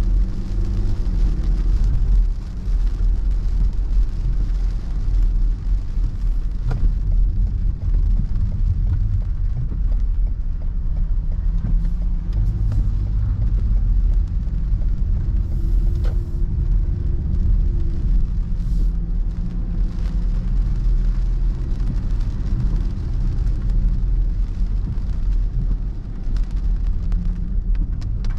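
Car driving on a wet road, heard from inside the cabin: a steady low rumble of engine and tyres, with the engine note rising and easing now and then. A couple of faint clicks come through, one about a third of the way in and one past the middle.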